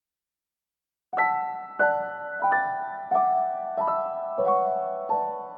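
Background music: slow piano chords, one struck about every two-thirds of a second and each left to fade, starting about a second in after silence.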